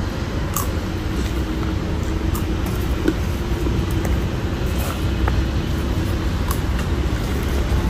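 Steady low rumble of street traffic, with a faint steady hum and a few light clicks.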